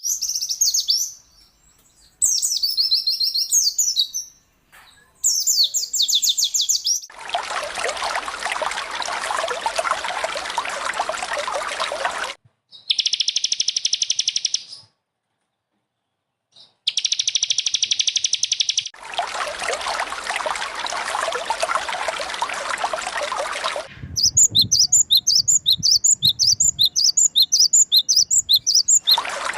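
Recorded songbird song: high chirping phrases and trills in short bursts, and near the end a fast run of evenly repeated notes, about three a second. These alternate with several-second stretches of steady running, trickling water.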